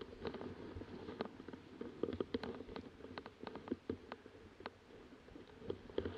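Irregular sharp clicks and taps over a low rumble: handling and rustle noise on a body-mounted action camera as the wearer moves about on the launch slope.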